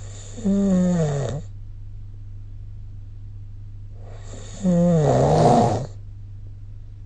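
A person snoring in sleep: two snores about four seconds apart, each about a second long and dropping in pitch, with a faint breath just before each.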